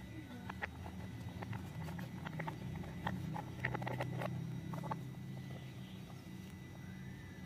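Light plastic clicks and taps as a plastic toy train's wheels and pegs are pulled off and set down on a wooden table, busiest about halfway through, over a low steady hum.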